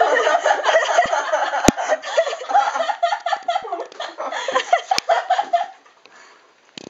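Laughter that goes on for about six seconds, breaking off near the end, with two sharp clicks about three seconds apart.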